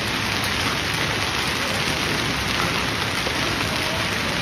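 Severe hailstorm: hail and rain pelting a paved square, a dense, steady hiss of countless impacts on the hail-covered, waterlogged ground.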